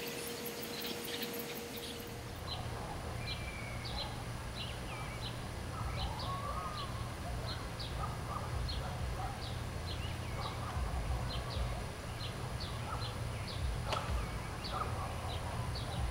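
Small birds chirping outdoors, with short high chirps coming every half second or so, over a steady low rumble. There is a single click about fourteen seconds in.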